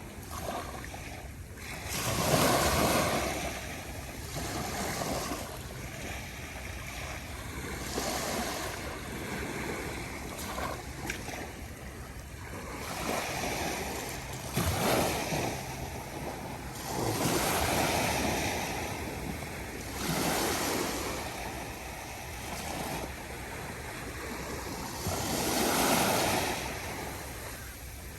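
Calm ocean waves washing onto a beach, each one swelling and fading every few seconds.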